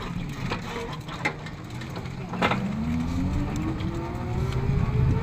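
An engine running and speeding up, its pitch rising steadily through the second half, over a low rumble with a few short clicks.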